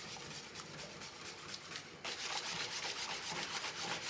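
Wire whisk beating a milk and egg mixture in a stainless steel bowl: a quick, steady rhythm of swishing strokes, louder and brisker from about halfway.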